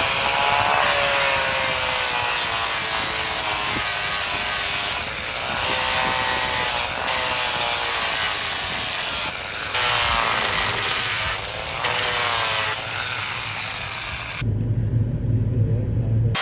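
Corded angle grinder grinding down the edge of plywood siding, its motor whine sagging as it bites into the wood and picking back up as it eases off, with a few brief let-ups. It stops abruptly near the end, giving way to a lower hum.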